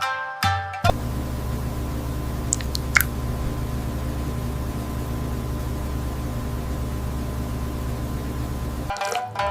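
Steady low mechanical hum with hiss, unchanging for about eight seconds, with a brief high chirp about three seconds in. Plucked-string music cuts off just after the start and returns near the end.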